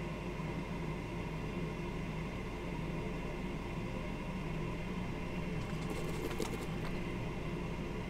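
Steady machine hum and hiss from workbench equipment, with a brief run of faint clicks about six seconds in.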